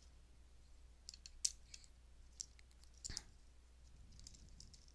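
Faint, scattered clicks of a plastic transforming action figure's joints and parts being worked by hand, a handful over a few seconds, the sharpest about a second and a half in.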